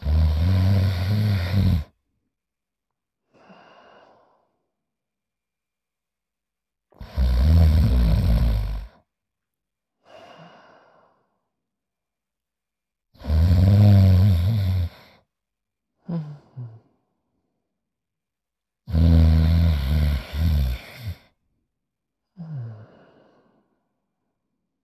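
Cartoon snoring: four long, loud, low snores about six seconds apart, each followed by a shorter, quieter breathy exhale.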